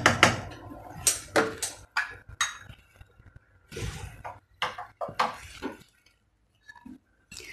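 Scattered clinks and knocks of metal kitchen utensils and dishes being set down and moved on a counter, with a gas hob knob being turned off about four seconds in.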